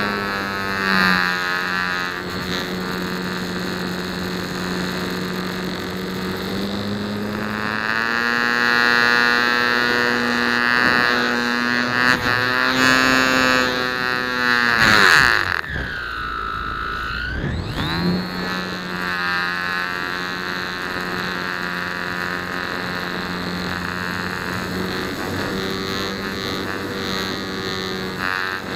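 Electric motor and propeller of a Flite Test Nutball foam RC plane in flight, heard from on board: a steady propeller whine with wind rush. About a quarter of the way in the pitch climbs slowly as the throttle opens; about halfway the motor is cut, its whine sweeping down, then it powers back up and returns to a steady pitch about two seconds later.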